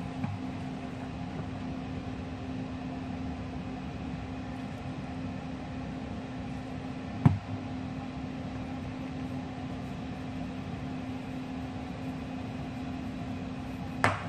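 A steady mechanical hum with one constant low tone, broken by two sharp knocks, one about halfway through and one near the end.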